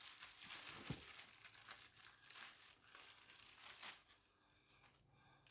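Packaging crinkling and rustling as parts are pulled out of a box, with a light knock about a second in. The rustling stops about four seconds in.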